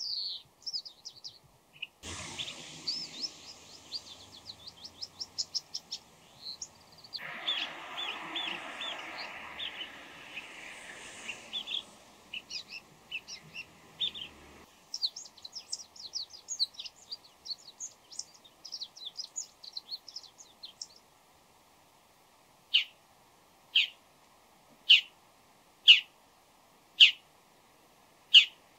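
Bull-headed shrike calling in a varied run of quick chirps, trills and chattering phrases, typical of its mimicry of other birds. From about three-quarters of the way through come six or seven loud, sharp single calls, about one a second.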